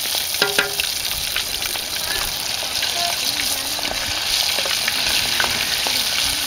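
Battered snails deep-frying in hot oil in a steel pan, a steady sizzle full of small crackles, while a slotted steel ladle stirs them through the oil.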